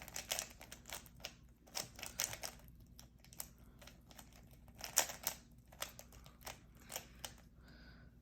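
Plastic Rubik's cube layers being turned fast by hand: irregular clicking and clacking, some turns in quick runs and a quieter stretch in between.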